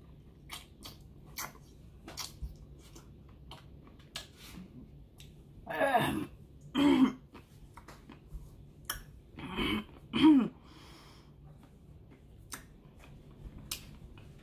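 A person coughing and clearing their throat in four short, harsh bursts in the middle stretch, set off by the burn of hot spicy ranch seasoning on a pickle. Small clicks come in between.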